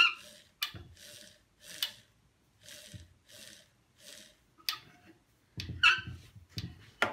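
Variac dial being turned by a gloved hand: soft scraping strokes about two a second, with a brief mumble near the end. The washing machine motor on it makes no running sound, since no power is reaching it.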